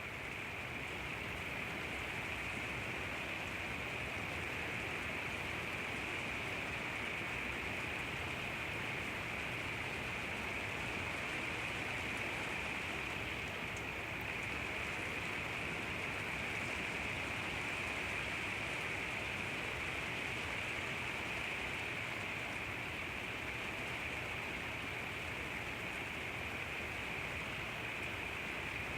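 Steady rain pouring, a continuous even hiss of falling drops that stays constant throughout.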